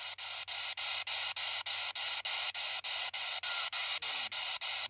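P-SB7 spirit box sweeping through radio stations: a steady hiss of static broken by short dropouts about six times a second as it jumps from channel to channel.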